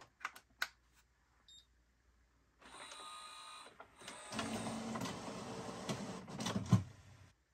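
Canon Pixma TS9521C inkjet printer running its first warm-up after being switched on: a few light clicks, then its internal motors whirring with irregular ticking and rattling, louder from about halfway, cutting off near the end.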